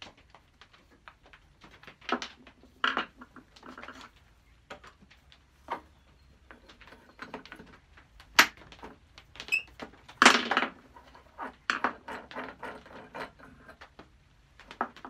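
Metal parts of a Stanley No. 71 router plane clinking and knocking as the plane is stripped down with a screwdriver, with parts and the tool set down on a wooden board. Irregular clicks and knocks, the loudest a little after ten seconds in.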